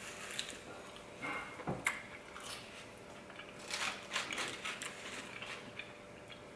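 Close-up eating sounds: chewing, with scattered small clicks and brief rustles as fingers pick through food in a paper-lined takeout container.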